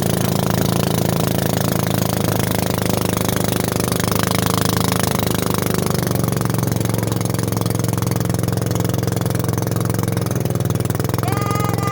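Boat engine running steadily with a fast, even pulse. A separate pitched tone starts near the end and slides slowly lower.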